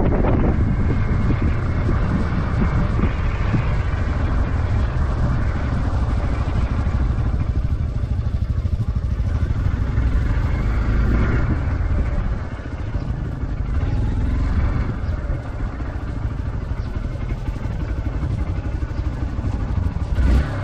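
Motorcycle engine running under the rider with wind rushing over the microphone while riding; the noise eases about twelve seconds in as the bike slows.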